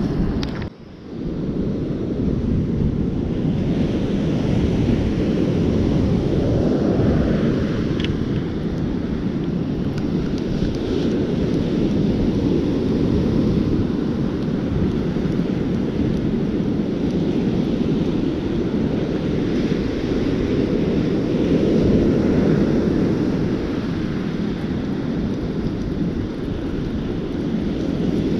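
Wind buffeting the microphone over the steady wash of breaking ocean surf, a constant low rumble that swells and eases, dropping out briefly just under a second in.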